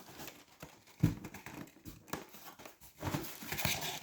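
Packaging being handled and opened: crinkling and rustling, with a soft thump about a second in and a longer burst of rustling near the end.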